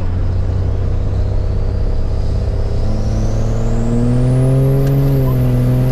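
2005 Dodge Ram's 5.9 Cummins turbo-diesel inline-six accelerating hard, heard from inside the cab. The engine note climbs through the second half, with a slight dip about five seconds in, while a high turbo whistle rises steadily and then holds.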